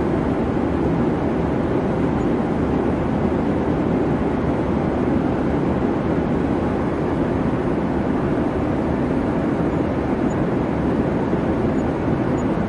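Steady jet airliner noise in flight: an even, unbroken rushing drone, heavy in the low end.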